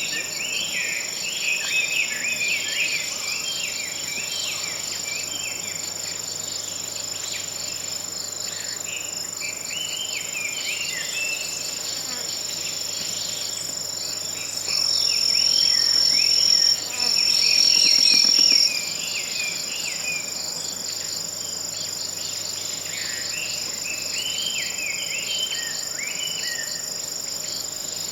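Autumn forest ambience: insects trilling steadily at a high pitch, with scattered small bird chirps. About halfway through, a nearer insect trill comes in much louder for a few seconds, breaks off briefly, then resumes before stopping.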